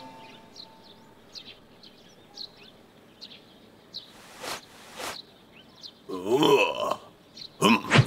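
Cartoon sound effects: faint short high chirps, then two quick swishes about halfway through, followed by a character's grunting vocalisation in the last two seconds.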